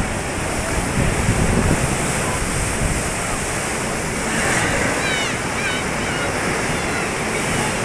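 Atlantic sea waves breaking and washing in a steady surging rush. From about halfway, faint high wavering calls sound over the surf.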